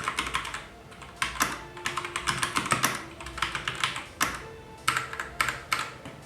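Typing on a Dazz Alpha Red plastic TKL mechanical keyboard with Gateron Red linear switches: quick runs of key clicks in bursts with short pauses between them. The typing noise is low for a mechanical keyboard.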